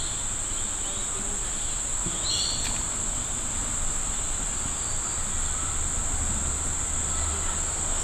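Steady high-pitched insect drone, with two short chirps near the start and about two seconds in.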